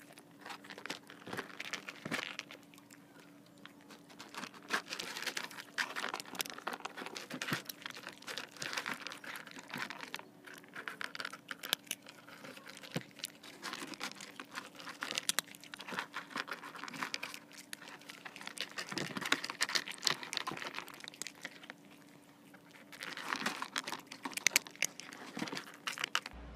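Cats eating dry kibble, with quick irregular crunches of chewing and clicks of kibble against a Foamex (PVC foam board) tray, picked up close by a microphone at the tray.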